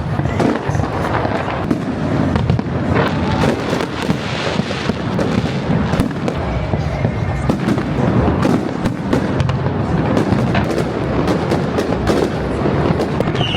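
Large fireworks display going off: a continuous barrage of bangs and crackles, many bursts overlapping.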